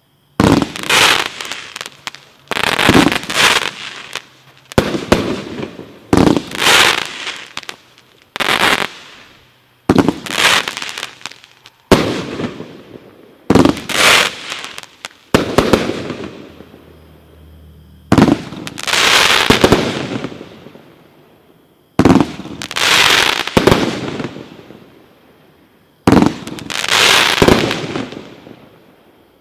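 Black Cat consumer fireworks going off one after another. Sudden loud bangs and crackling bursts come about every two seconds, each fading out over a second or two, with a longer crackling stretch about two-thirds of the way through.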